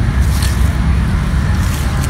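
Steady low rumble of wind buffeting the microphone, with two short hissy rustles, one about half a second in and one near the end.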